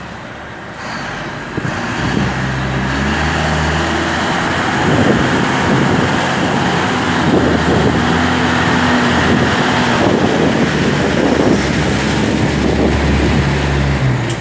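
Heavy diesel vehicle engine running in a container yard. It builds up over the first two seconds and then holds steady, with a faint high whine above it through the middle.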